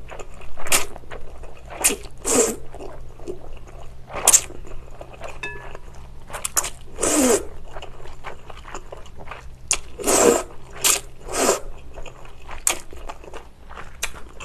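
A person slurping chewy jjolmyeon noodles out of spicy broth: about ten sharp slurps, with two longer pulls about seven and ten seconds in.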